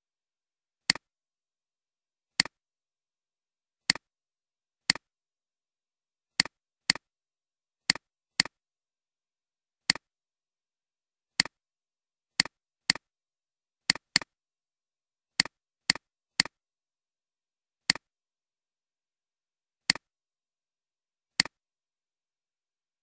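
Computer mouse clicks: about twenty short, sharp clicks at uneven intervals, some in quick pairs, with dead silence between them.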